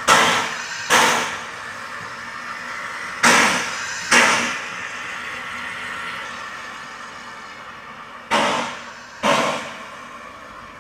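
Exhaust chuffs of a small Corpet-Louvet 0-4-0 steam locomotive moving off slowly: six sharp chuffs, each dying away quickly, coming in pairs about a second apart with longer pauses between the pairs. The last two are quieter as the engine draws away.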